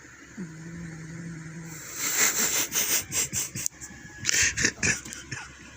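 Domestic cat snoring: a low, steady droning snore about half a second in, then from about two seconds in much louder, rough, rattling breaths in two bouts.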